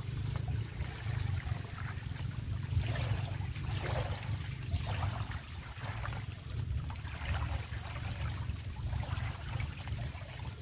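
Small waves lapping and trickling in shallow lake water, with a steady wind rumble on the microphone.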